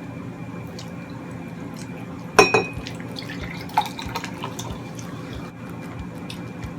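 Tableware clinking during a meal: one sharp, ringing clink about two and a half seconds in and a smaller one about a second later, with a few faint ticks over a steady room hum.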